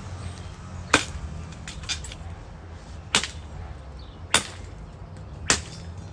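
Sharp knocks of cut tree limbs being struck or handled: four loud strikes a second or two apart, with a couple of lighter knocks after the first.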